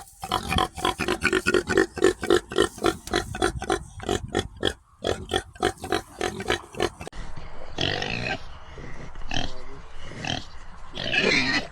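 Pig grunting in a quick run of short grunts, about four or five a second. After a cut about seven seconds in, it gives a few separate, louder, higher calls.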